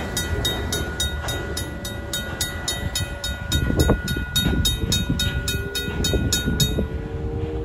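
RACO mechanical crossing bell ringing at about four strikes a second, then stopping near the end once the train has cleared the crossing. Under it, the low rumble of Union Pacific freight cars rolling away over the rails.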